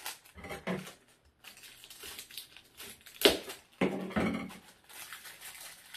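Packaging crinkling and rustling as a microphone pop filter is unwrapped, with a sharp, loud crackle about three seconds in.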